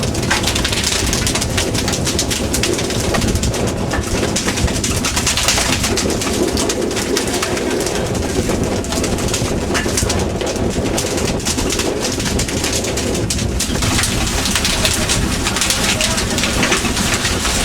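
Steady, loud running noise of a fishing boat's engine, unbroken throughout.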